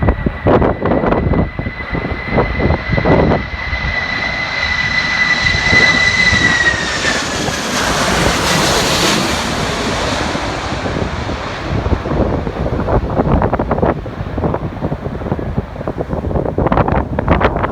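Jet airliner passing close by: its engines' steady whine drops in pitch as it goes past, while the rush of the engines swells to a peak about halfway through and then fades. Strong wind buffets the microphone, most heavily at the start and near the end.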